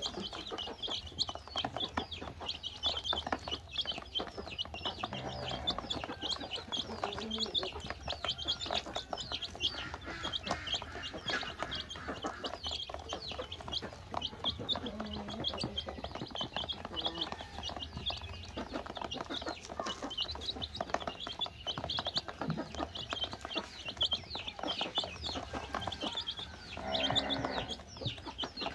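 A brood of chicks peeping continuously in many short, high chirps, with small pecking taps on a plastic basin as they eat crumbled feed. A brief louder, lower-pitched sound comes near the end.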